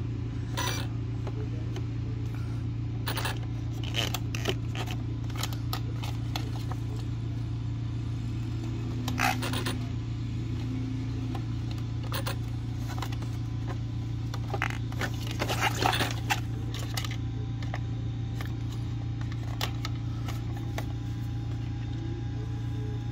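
A landscaper's powered machine runs with a steady low drone throughout, while hands handling the plastic body and parts of an ARRMA Fire Team RC car make scattered clicks, taps and rattles, with a cluster of louder clicks about sixteen seconds in.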